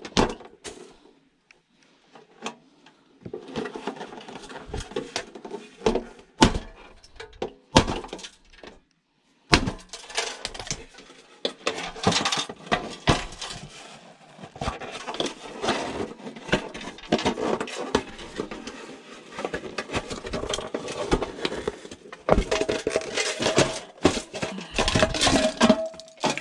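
Hand tools working on metal scrap: irregular knocks, clinks and scraping as a stubborn, spinning fixing is forced apart by hand. There is a short dead gap about nine seconds in.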